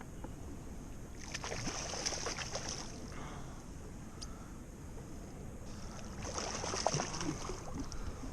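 Water splashing and sloshing at a kayak in two spells, with a few light knocks.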